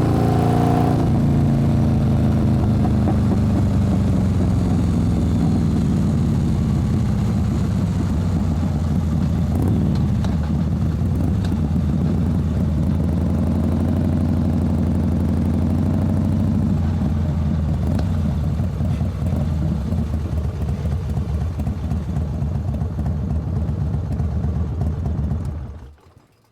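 Motorcycle engine dropping in revs, then running steadily at low revs near idle. It stops near the end.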